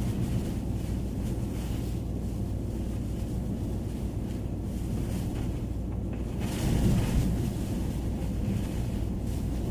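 Blizzard wind buffeting the microphone over a steady low rumble, with a stronger gust a little after halfway.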